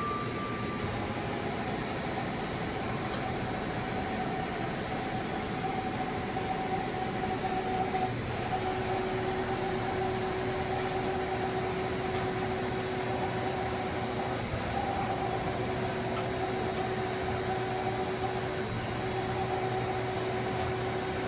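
Johnford VMC1300HD vertical machining center's axis drives running as the axes traverse: a steady two-note whine over a constant machine hum. The whine breaks and picks up again about 8, 14 and 19 seconds in.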